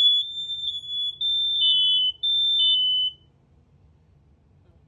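Several interconnected AC-powered smoke alarms sounding together after a test, their high-pitched beeps at slightly different pitches overlapping. They stop about three seconds in.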